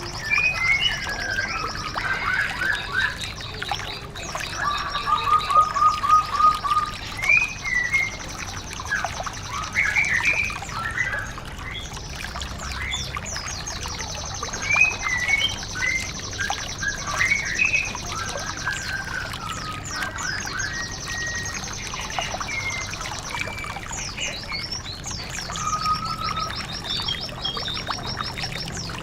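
Songbirds singing in a white-eye (pleci) training recording: varied short whistled phrases and quick trills, with a high, fast trill running behind them that breaks off now and then. A steady hiss like running water lies underneath.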